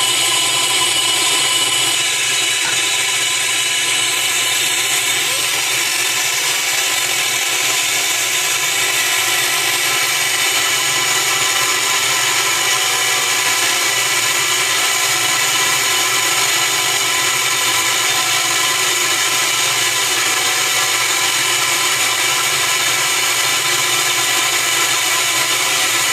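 Laser engraving machine running: a steady, unbroken buzzing hiss with several high whining tones held throughout.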